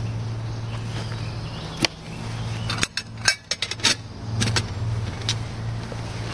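Clicks and knocks of camping cookware being handled: a plastic water bottle set down and a small metal pot worked on a canister gas stove, with a quick run of sharp clicks about three to four seconds in. A steady low hum runs underneath.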